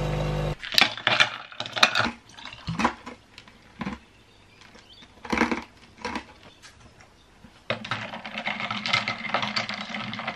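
An espresso machine's pump buzzes steadily and cuts off about half a second in. Then come scattered sharp clinks of ice against a glass jar. For the last few seconds a straw stirs the iced coffee in the jar, and the ice rattles steadily against the glass.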